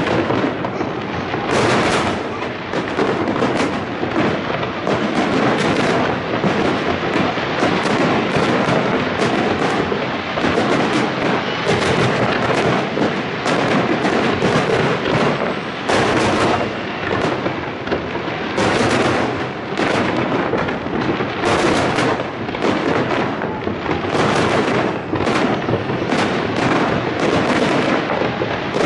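Fireworks display: aerial shells bursting in a dense barrage, bangs coming several a second and running together into a continuous din.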